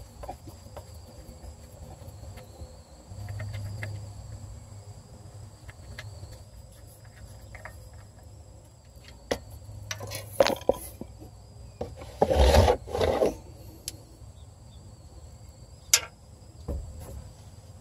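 Faint scraping and small clicks of an oil drain plug being unscrewed by hand from a truck's oil pan, with a few louder brief scrapes and knocks, the loudest about twelve and a half seconds in.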